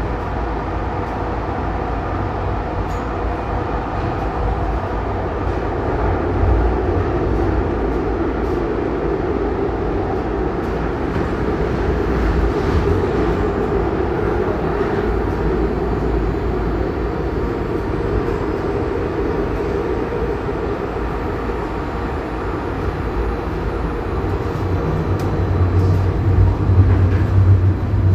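Calgary CTrain light rail car in motion, heard on board: a steady rumble of wheels on rail and running gear, with a low hum that grows stronger near the end.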